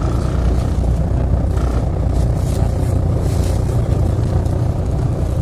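Steady low rumble of a MAZ-203 city bus engine heard from inside the passenger cabin.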